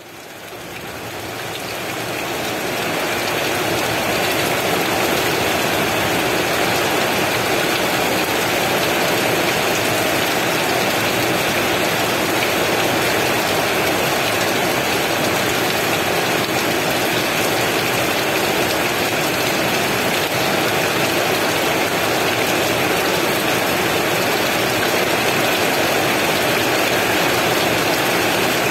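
Heavy rain falling steadily, an even hiss with no thunder, fading in over the first few seconds.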